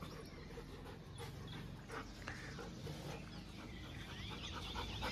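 Faint sounds of several dogs moving about and playing, with a few soft knocks and clicks.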